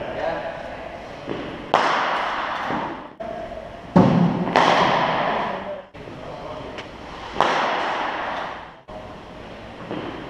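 Cricket balls being struck in indoor practice nets: three loud, sharp knocks a couple of seconds apart, with smaller ones between, each ringing on for a second or more in the large hall.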